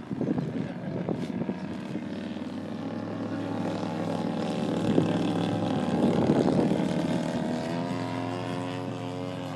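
Radio-controlled model airplane's motor and propeller droning steadily in flight, the pitch rising slightly near the end.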